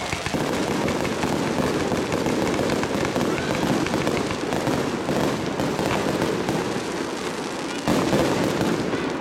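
Fireworks going off in a dense, continuous crackle of many small pops, with a louder burst of crackling about eight seconds in.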